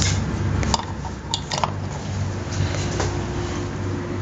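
Sharp clicks and knocks from a power plug and cord being handled, over a steady low hum. A faint steady tone joins the hum about two seconds in.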